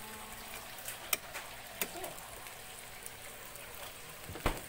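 Food frying in a double-sided grill pan on a gas burner: a steady soft sizzle, broken by a few light clicks and a sharper knock near the end.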